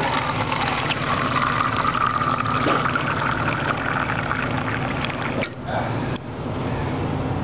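Hot water running from a Fetco coffee brewer's hot-water faucet into a plastic cup, stopping about five seconds in.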